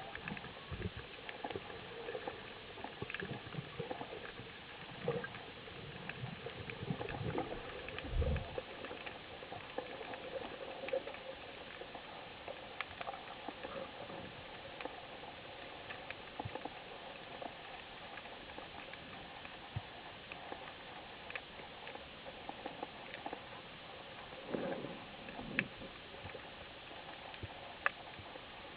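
Underwater ambience picked up by a camera in a waterproof housing: a steady hiss with scattered sharp clicks and crackles. Low bubbling rushes come from a freediver's descent in the first few seconds and again at about 25 s.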